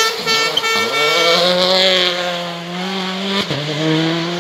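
Citroën C3 R5 rally car's 1.6-litre turbocharged four-cylinder accelerating out of a hairpin, its note rising and then holding. About three and a half seconds in there is a quick upshift: a click, a drop in pitch, then the note climbs again. A steady horn sounds at first and stops about a second and a half in.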